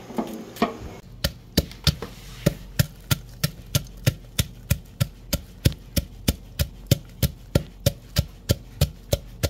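Wooden pestle pounding chillies in a mortar, in steady strokes about three a second, starting about a second in.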